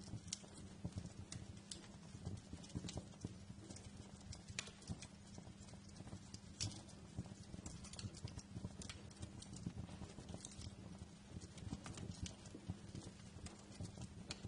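Wood fire burning in a fireplace: irregular sharp crackles and pops over a dense, low rumble of the flames.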